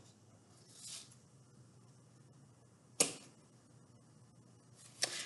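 Quiet room with hands handling thin elastic cord and glued paper craft pieces on a table: a soft rustle about a second in and one sharp click about three seconds in.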